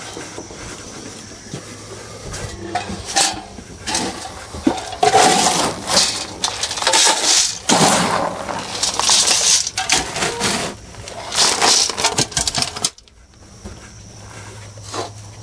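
Irregular clattering and knocking of feed buckets jostled by cattle eating from them, busiest in the middle and stopping abruptly near the end.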